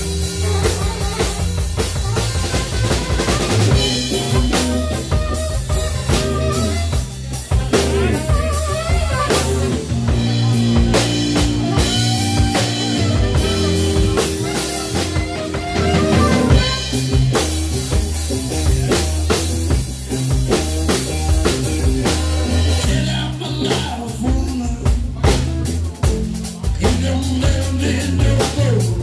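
Live band playing an instrumental passage: drum kit with snare and bass drum, electric bass and melodic lead lines.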